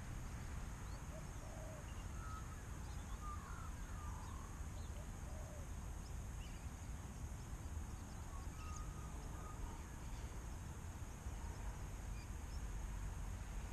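Wind rumbling on the microphone, with scattered short bird calls and chirps and a faint steady high whine underneath.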